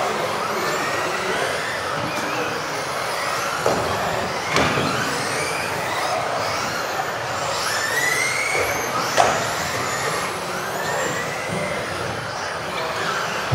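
Several electric 1:10 RC off-road buggies racing together, their motors whining up and down in pitch as they accelerate and brake. Sharp knocks come about four seconds in and again near nine seconds, the later one the loudest.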